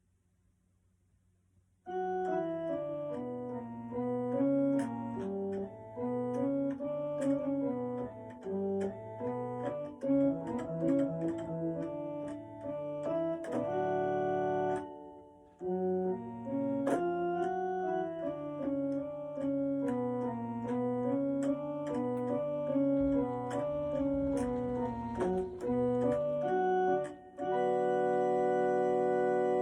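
Electronic keyboard played by sight-reading: a melody over chords starting about two seconds in, with a brief break about halfway, ending on a long held chord.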